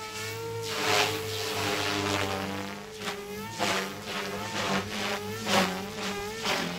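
Protos 380 electric RC helicopter flying manoeuvres at high headspeed: a steady motor and rotor whine that wavers up and down in pitch, with repeated loud whooshes from the rotor blades, the loudest about a second in and again near the end.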